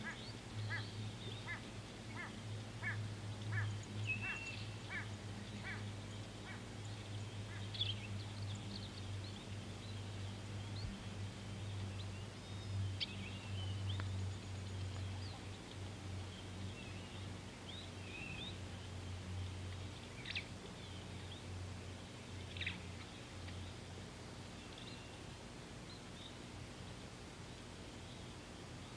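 Wild birds calling: a run of short, evenly repeated calls at about two a second that fades out after some six seconds, then scattered higher chirps. A steady low hum lies underneath.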